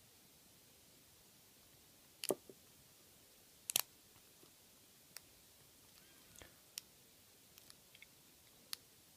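Scattered sharp metallic clicks and ticks from a lock pick and tension wrench working the security pins of a five-pin Federal 50 mm padlock, about eight in all, the loudest about two and four seconds in.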